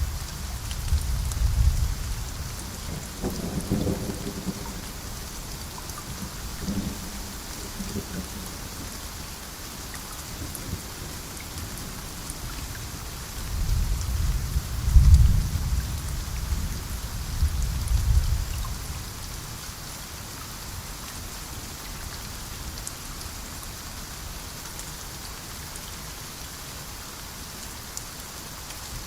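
Steady heavy rain with rumbles of thunder, one near the start and a longer roll about halfway through.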